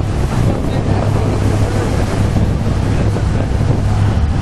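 Boat engine running steadily under way, a low drone, with wind buffeting the microphone and water rushing along the hull.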